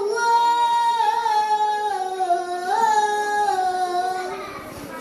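A boy chanting the azan, the Muslim call to prayer, in one long drawn-out phrase that wavers and slowly falls in pitch before fading out near the end.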